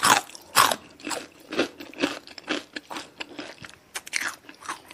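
Crispy Jollibee Chickenjoy fried chicken being bitten and chewed close to the microphone: irregular crunches and wet mouth sounds, the loudest crunch right at the start.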